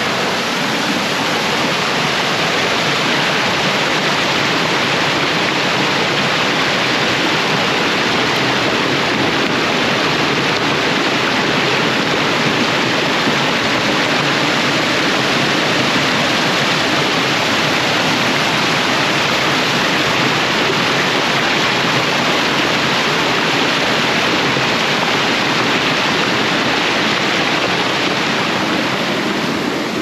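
Small waterfall, a loud, steady rush of falling water.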